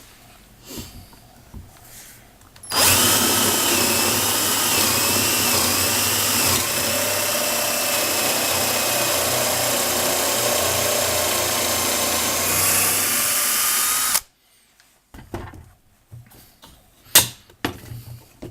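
Power drill boring a dowel hole into a wooden board. It starts about three seconds in, runs steadily for about eleven seconds with a change in pitch partway through, and stops abruptly. A few sharp clicks and knocks follow.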